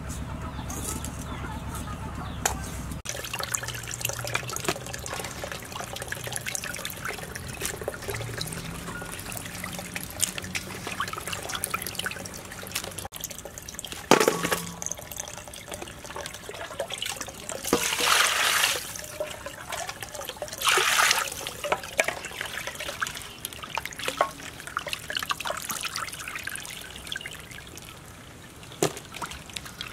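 Water sloshing and trickling in a metal pot as fish is washed by hand, with two louder pours of water about two-thirds of the way in. A steady motor hum fades out in the first few seconds.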